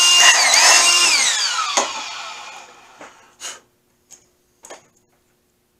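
Cordless drill motor running at full speed with a steady high whine, easing off and picking up again about half a second in, then winding down with a falling pitch over the next second or two. A few light knocks follow near the end.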